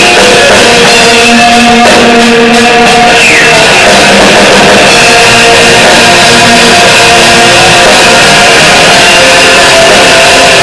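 Live rock band playing loud: electric guitars, bass guitar and drums.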